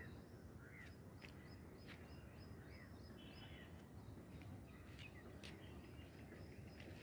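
Faint open-air ambience: an even low rumble, with scattered short bird chirps and calls and a few sharp clicks throughout.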